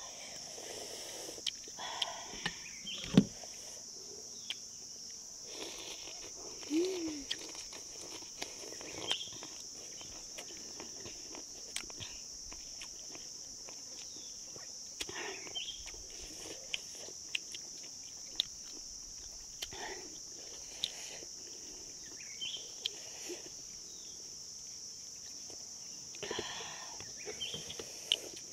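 Steady high-pitched insect chorus, with scattered short clicks and small knocks over it. A sharp knock about three seconds in is the loudest sound.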